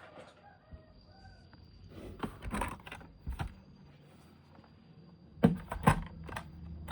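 Plastic toy vehicles being handled: scattered light clicks and rattles, ending in two sharp knocks near the end.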